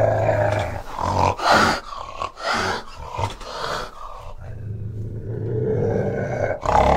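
Fishing cat growling: two long, low, steady growls with a cluster of short harsh bursts between them, and a sharp burst near the end.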